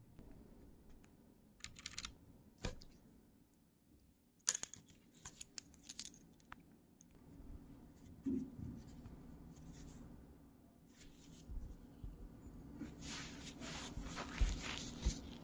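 Hands working on a mechanical keyboard: scattered sharp clicks, scrapes and rustling, not typing, with a denser run of clicks and rustle near the end.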